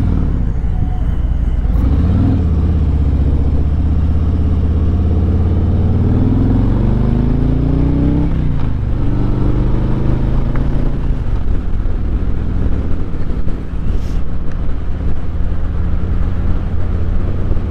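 Motorcycle engine heard from the rider's seat, pulling under acceleration: its note climbs steadily for several seconds, drops sharply about eight seconds in, then holds a steadier, lower pitch while cruising.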